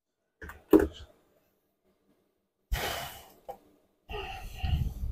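Two quick metallic knocks as engine parts are handled on the bare crankcase during a teardown. About two and a half seconds in comes a loud breathy rush, then rustling handling noise close to the microphone in the last second.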